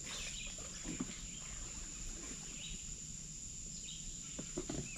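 Birds chirping now and then over a steady high-pitched whine, with faint rustling.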